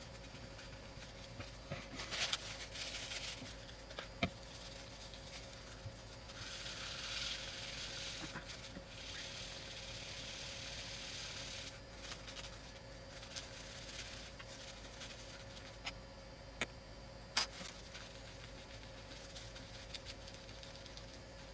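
Small hand tool rubbing and scraping on the iPad, in a short stretch about two seconds in and a longer one of about five seconds from six seconds in, with a few sharp clicks of tools on a hard surface.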